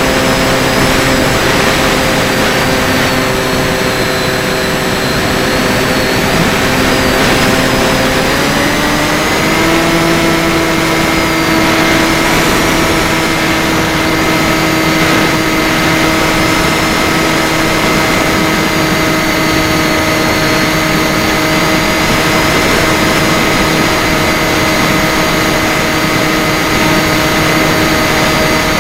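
FPV drone's electric motors and propellers whining steadily with several tones at once; about eight seconds in they rise in pitch over a second or two as the throttle goes up, then hold steady at the higher pitch.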